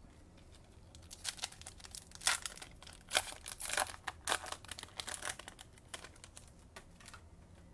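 Plastic card-pack wrapper being torn open and crinkled by hand, a run of sharp crackles starting about a second in.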